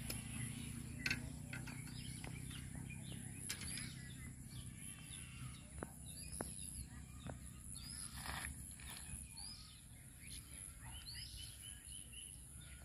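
Birds chirping and calling in short repeated notes over a low steady rumble of background noise, with a few sharp ticks.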